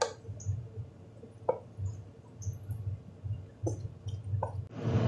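Wooden spatula stirring a stir-fry of cucumber, shiitake mushrooms and pork belly in a stainless steel pan: soft squishing of the food with a few light clicks of wood on the pan. A steady hiss comes in near the end.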